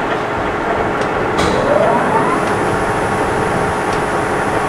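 Blanchard 18-36 rotary surface grinder running with its chuck turning, then its 25 HP spindle motor switched on: a click about a second and a half in, followed by a rising whine as the 18-inch grinding wheel spins up, over the steady hum of the machine.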